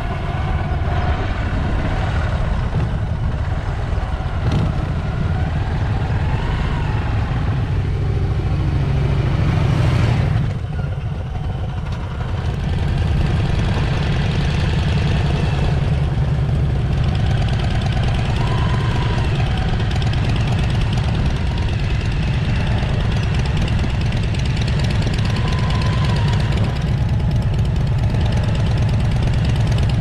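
Motorcycle engine running steadily at low road speed, a low-pitched thrum. It dips briefly about ten seconds in, then picks up again.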